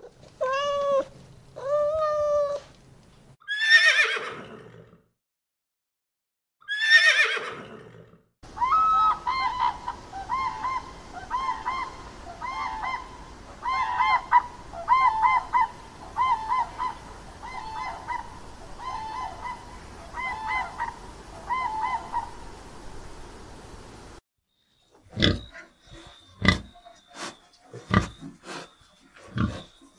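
A run of animal calls. Two meows from a domestic cat, then two loud falling calls. Then a long series of short, repeated honking calls from grey crowned cranes, and near the end short sharp sounds from pigs in a pen.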